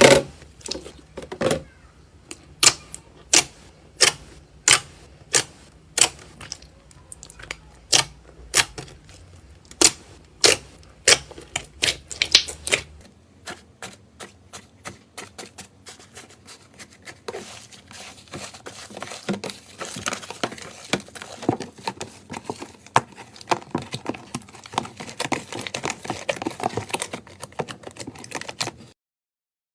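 Slime pressed and worked by hand, giving a regular series of sharp clicking pops about one and a half a second. After a cut these give way to a denser, faster crackle.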